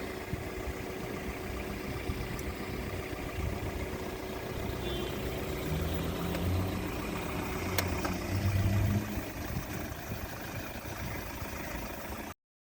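Car engine and road noise heard from inside the cabin, a steady rumble with a single sharp click about eight seconds in. The sound cuts off suddenly just before the end.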